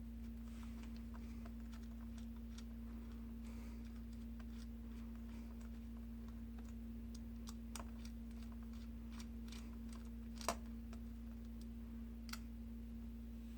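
Scattered light clicks and taps of a small screwdriver and laptop parts being handled during disassembly, over a steady low hum. One sharper click stands out about ten and a half seconds in.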